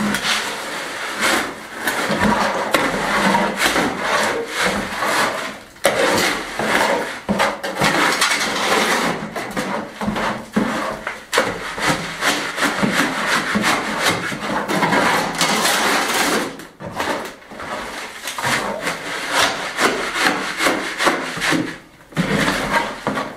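A steel shovel scraping and turning a wet sand, gravel and lime mix for limecrete in a metal wheelbarrow, stroke after stroke, the blade grating on the tray.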